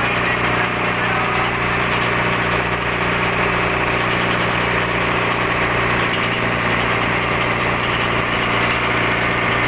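Fishing boat's open inboard engine running steadily at low revs close by on deck, an even, unchanging drone.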